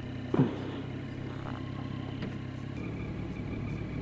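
Triumph Street Triple 675R's 675 cc inline three-cylinder engine running at a steady cruise under the rider, with road and wind noise. Its note changes about three seconds in.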